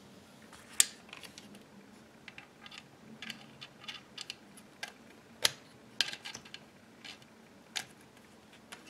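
Irregular sharp clicks and taps of the parts of a BRS-99 9mm carbine being handled and fitted by hand, the loudest about a second in and again just past the middle.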